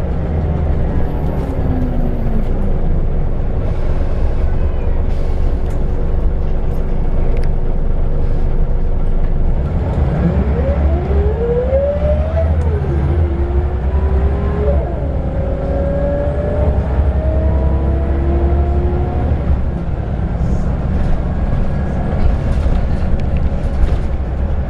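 Scania L94UB bus's five-cylinder diesel with its ZF 5HP-502C automatic gearbox, heard from on board over a steady low rumble. After an early fall in revs, the bus pulls away about ten seconds in: the engine note climbs, drops at an upshift a couple of seconds later, then climbs again.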